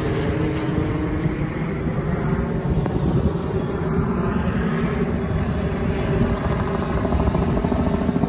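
Police helicopter circling overhead: a steady rotor chop with engine drone.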